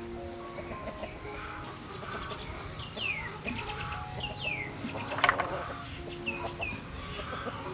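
Chickens clucking, with short high falling peeps a few times.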